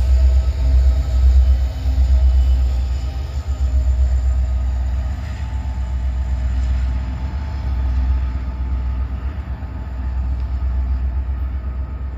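Rear distributed-power diesel locomotives of a freight train, an EMD SD70M and an SD70ACE, passing and moving away with their cars. Their deep, steady rumble slowly fades.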